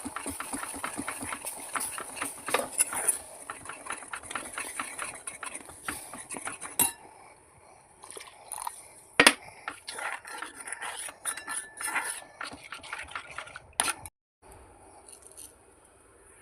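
Metal spoon stirring and scraping in a cooking pan, with utensils clinking: quick continuous scraping strokes for the first several seconds, then scattered knocks and a few sharp clinks.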